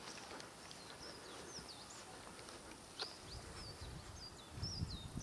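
Small birds calling faintly: short high chirps and quick sliding whistles, scattered throughout, with a low rumble in the second half.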